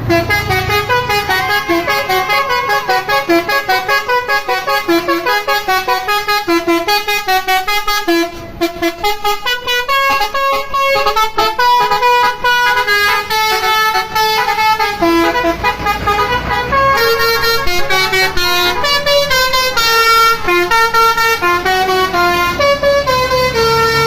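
A bus's basuri (telolet) musical horn playing a melody, a quick run of horn notes one after another, a few each second.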